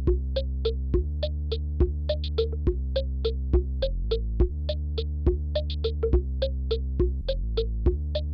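Background music: quick, short plucked notes, about three or four a second, over a steady low held chord.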